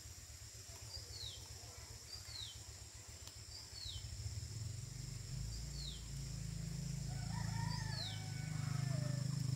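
Rural outdoor ambience: insects drone steadily and high, and something repeats a short falling chirp every second or two. A chicken calls briefly about three quarters of the way through, over a low rumble that builds from about halfway.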